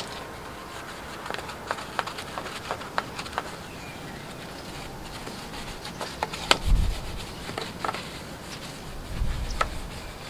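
A small wooden-handled detailing brush scrubbing a foam-covered alloy wheel, with scattered sharp clicks and taps as the brush knocks against the rim and spokes. Brief low rumbles about 7 s in and again near the end.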